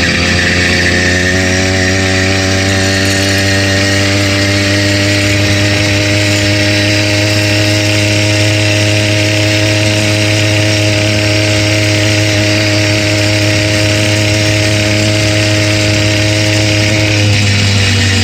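Stock 80cc two-stroke bicycle engine kit running at a steady cruising speed; its revs climb a little at the start, hold steady, then change near the end. The engine is brand new, and its owner hears a knock in it that he takes for rod knock.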